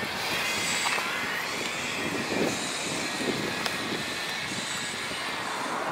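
Steady rushing noise of road traffic.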